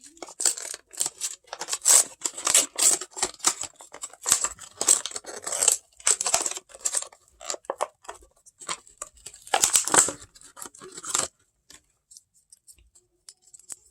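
Fidget toy packaging being opened: a quick, uneven run of crinkling, tearing and scraping that stops about eleven seconds in, then a few faint ticks.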